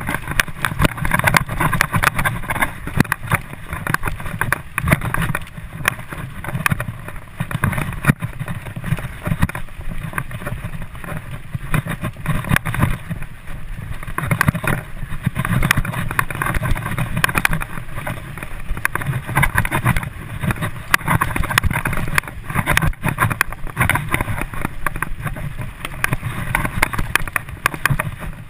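Mountain bike ridden fast along a dirt forest trail, heard from a camera mounted on the rider: steady wind rumble on the microphone and tyre noise, with constant small knocks and rattles as the bike jolts over the ground.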